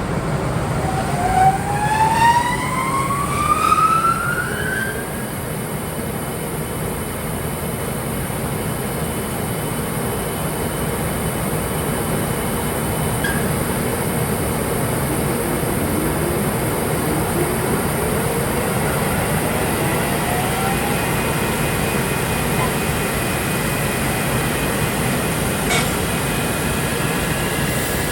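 Small electric motor of a PET planer-sander machine, its pitch rising as it speeds up over the first few seconds, then running with a steady noise; a second, fainter rising whine follows about two-thirds of the way through.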